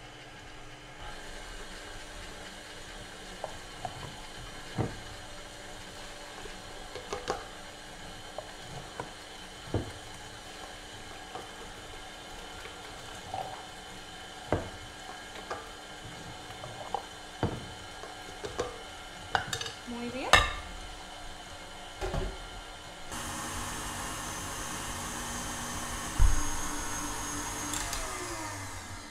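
Tilt-head KitchenAid stand mixer running steadily, beating cream cheese while dissolved sugar and gelatin are added, with scattered clinks and taps of a measuring cup and the beater against the glass bowl. About 23 seconds in it gets louder and brighter, there is a thump a few seconds later, and near the end the motor winds down to a stop.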